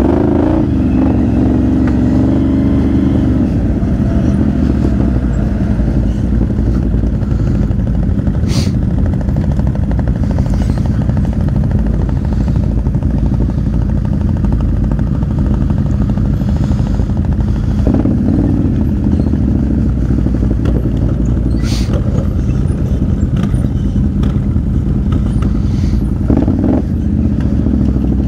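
Can-Am XMR 1000 ATV's V-twin engine running steadily while riding, its revs rising and falling a few times. There are two sharp knocks, one about a third of the way in and one near three quarters.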